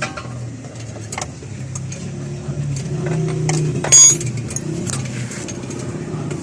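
Metal hand tools clicking and clinking against the engine's nuts and bolts while they are undone, with one loud ringing metal clang about four seconds in. Under it runs a steady low engine hum that swells slightly just before the clang.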